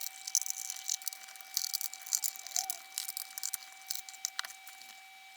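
Irregular clusters of light clicks and rattles as a crosshead screwdriver works the screws out of the back panel of a BOSS RC-505 loop station. The clicks come in bunches and thin out near the end.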